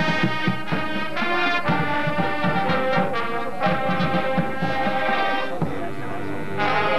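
Marching band playing: brass holding loud chords over the drumline's beat. About five and a half seconds in it drops to a softer held chord, then the full band comes back in about a second later.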